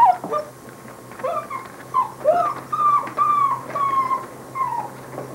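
Basset hound puppies whining: a string of short, high-pitched whimpers, many falling in pitch, coming one to two a second.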